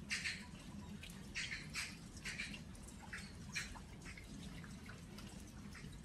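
Rain dripping onto earthenware crocks: short, irregular drops tapping, about one or two a second, over a faint steady background.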